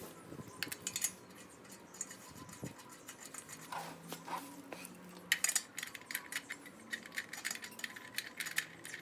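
Steel lug nuts clinking as they are handled and threaded onto the wheel studs. About five seconds in, a quicker, fairly even run of small clicks begins, about three a second, as the nuts are run down by hand tool rather than an impact gun.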